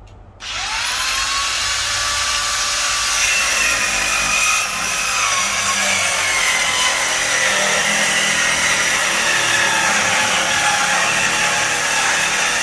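Corded circular saw starts about half a second in, its motor whine rising as it spins up, then cuts steadily through 3/4-inch plywood subfloor.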